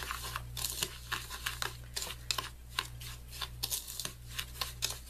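Granulated sugar, raspberries and coconut oil being stirred and mashed in a small bowl with a spatula: quick, irregular gritty scrapes and clicks.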